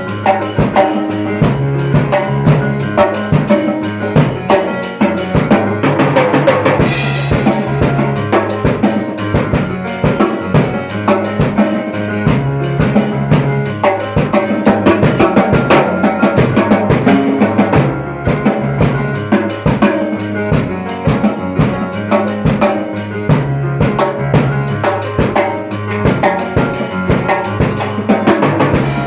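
Music led by a drum kit playing a steady beat over a bass line and other pitched instruments.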